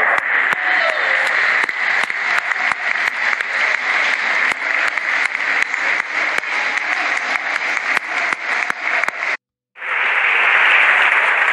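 Large football stadium crowd applauding: dense, continuous clapping over a crowd roar. About nine seconds in, the sound cuts out for a moment, then steady crowd noise returns.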